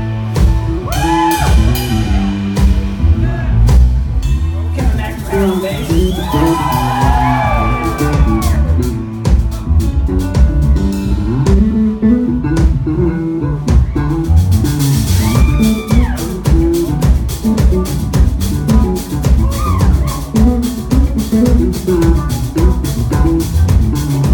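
Live band playing a song: keyboard, electric guitar and drum kit with a steady beat, and a voice singing over it in places.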